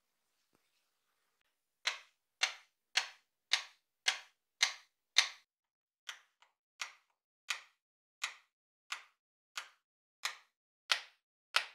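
Steel hammer head tapping repeatedly on a wooden tabletop: about sixteen sharp knocks a little under two a second, starting about two seconds in and getting somewhat softer about halfway through.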